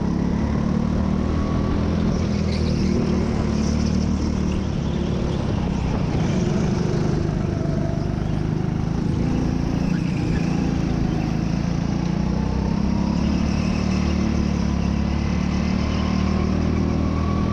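Go-kart engine running hard, heard from on board the kart, its pitch rising and falling as it accelerates and slows through the corners, with other karts' engines close by.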